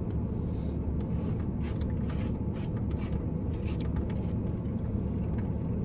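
Steady low hum inside a parked car's cabin, with scattered light clicks, scrapes and rustles of someone eating takeout food.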